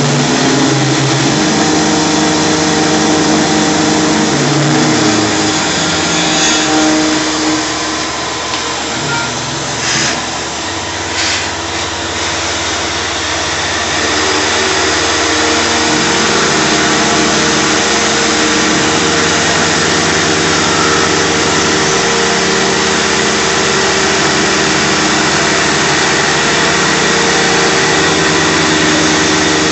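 Shop vacuum running at the cutter of a Tormach PCNC 1100 CNC mill as it machines a UHMW polyethylene pulley blank. The result is a steady rushing noise with machining tones that shift in pitch as the tool moves, and two short clicks about ten and eleven seconds in.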